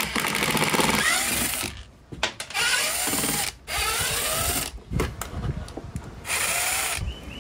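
Cordless impact driver backing out the screws that hold a boat's throttle-and-shift control in the console. It runs in four bursts of rapid hammering, the first the longest, and the motor pitch rises and falls with each trigger pull.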